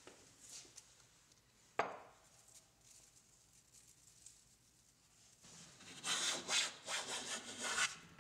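One sharp knock about two seconds in. From about halfway, a shop-made Krenov-style high-angle wooden smoothing plane with a Vera wood body takes several short strokes along a board, each push a rasping hiss as the iron cuts thin shavings.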